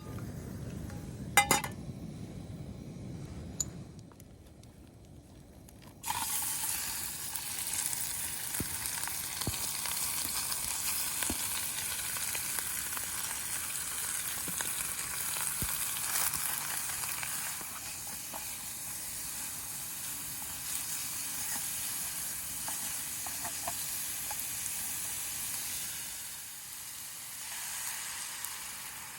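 A sharp knock about a second and a half in, then a few seconds later food hits a hot pan and starts sizzling, a steady frying hiss that carries on.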